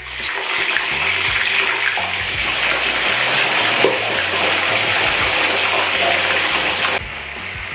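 Steady rushing hiss from cooking at the stove while boiled pieces are lifted out of a steaming pot into a metal colander, with one light clink of the spoon about four seconds in. The hiss drops in level near the end.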